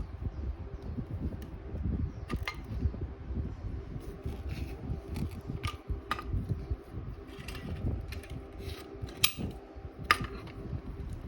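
A handful of sharp mechanical clicks and knocks, spaced irregularly, over a steady low hum. The last two, near the end, are the loudest.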